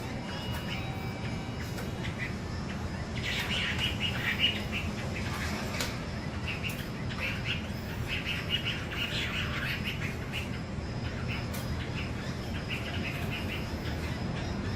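Wambi songbird chirping in clusters of quick, high notes with short pauses between them, over a steady low background hum.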